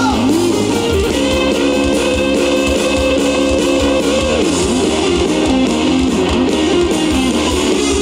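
Live band playing a loud rock song: strummed acoustic and electric guitars over drums, with a male lead singer's voice holding long notes.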